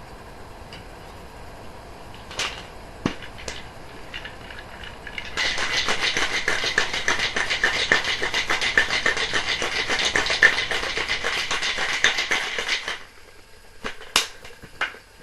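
Ice rattling hard inside a cocktail shaker being shaken for about seven seconds, starting about five seconds in after a few handling clicks; the drink is being shaken to chill it and dissolve the sugar.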